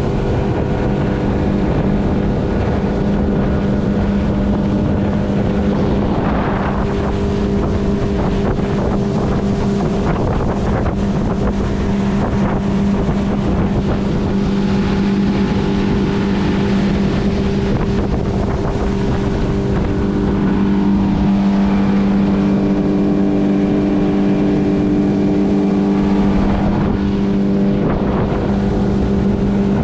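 Boat's 70 hp Yamaha outboard motor running steadily at cruising speed, a constant engine hum over the rush of the hull through the water.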